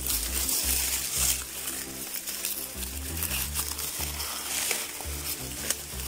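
Dry maize husks crackling and rustling as they are peeled back by hand from a ripe cob still on the stalk, over the low steady tones of background music.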